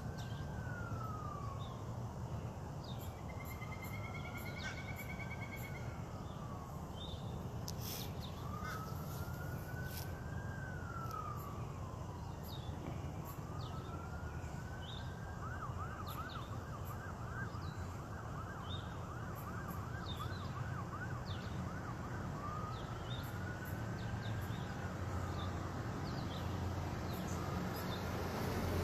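Emergency vehicle siren in a slow wail, each rise and fall taking a few seconds, switching to a rapid yelp for several seconds about halfway through and then back to the wail. Small birds chirp and a steady low rumble runs underneath.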